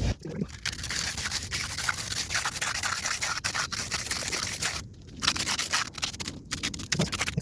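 Concrete edging tool scraping along the edge of a fresh concrete slab, rounding it over: a steady gritty scraping with short breaks about five seconds in and again a second or so later.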